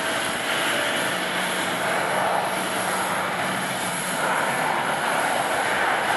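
Jet engines of a Boeing 737-800 airliner, CFM56 turbofans, running steadily as it rolls along the runway.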